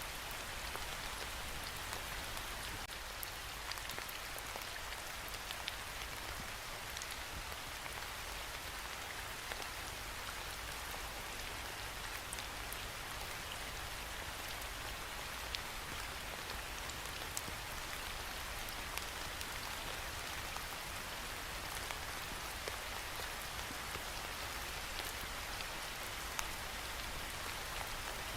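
Steady rain falling on a surface: a continuous hiss with scattered light drop ticks.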